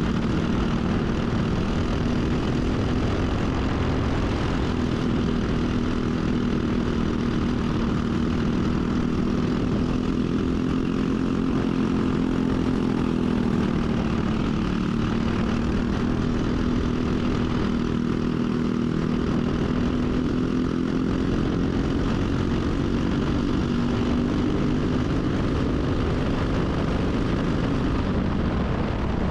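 Briggs & Stratton single-cylinder four-stroke kart engine running hard at racing speed, a steady loud drone whose pitch dips and rises a little as the revs change.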